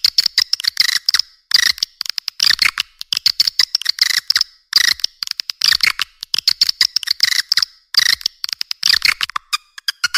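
Swiftlet call recording played as a lure sound for swiftlets: rapid chittering twitters in quick-fire bursts, one after another with short gaps.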